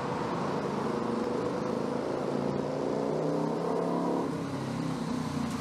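JR West 223 series electric train approaching on the JR Kyoto Line, its traction motors giving a droning whine of several tones that shift in pitch over the running noise.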